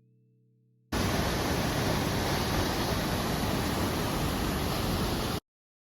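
Steady rushing of water, an even dense roar. It starts abruptly about a second in and cuts off abruptly near the end.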